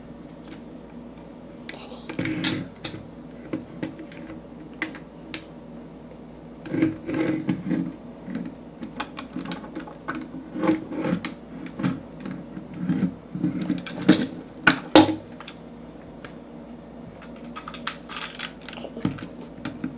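Plastic clicks and clatter of a Transformers Energon Ironhide action figure being handled and transformed, its parts snapping and knocking in irregular clusters.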